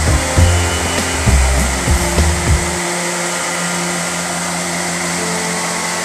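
Dhuandhar Falls on the Narmada River roaring: a loud, steady rush of water pouring over rock ledges. Low rumbling buffets hit the microphone for about the first three seconds, then stop.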